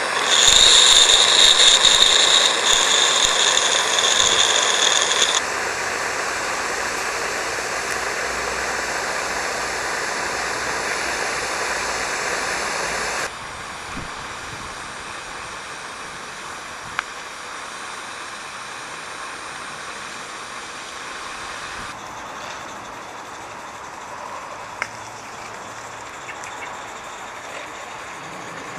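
Gas-fired Roundhouse Linda-class 16mm live-steam locomotive hissing: loud with a piercing high edge for the first few seconds, then a steady hiss, dropping about halfway to a quieter hiss as the train runs away, with an occasional click.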